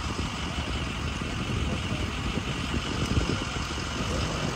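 Boat's outboard motor running in gear, a steady low rumble as it holds the boat up on its trailer.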